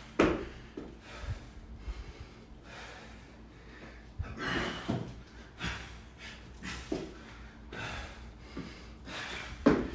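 A man breathing hard in heavy, gasping breaths, worn out partway through a workout of deadlifts and bar-facing burpees. There is a loud thump just after the start as he lands from jumping over the barbell, and another loud hit near the end.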